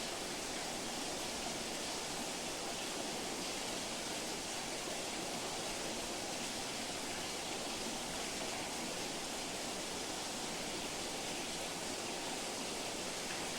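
Steady, even rushing noise of flowing water, unchanging throughout.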